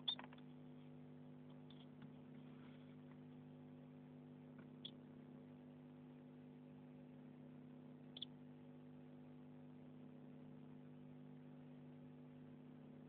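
Near silence: a steady low electrical hum, with a few faint brief clicks, one at the start and others about five and eight seconds in.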